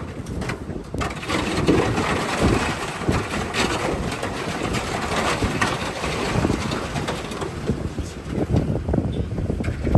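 Wind buffeting the microphone aboard a small boat underway, a gusty rumble with irregular thumps over the rush of the boat through the water.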